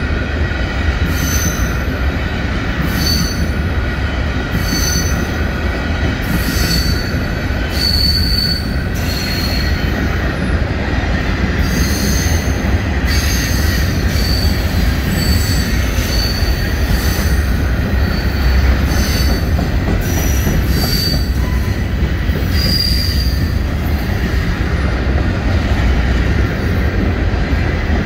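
Empty covered hopper grain cars of a Canadian Pacific freight train rolling past close by: a steady heavy rumble of wheels on rail, with short high-pitched wheel squeals again and again.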